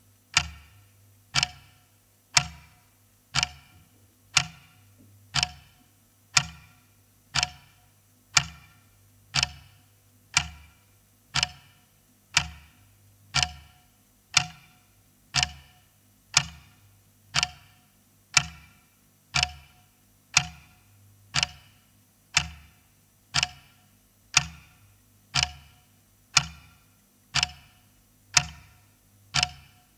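Clock ticking steadily, about one tick a second, each tick followed by a short fading ring.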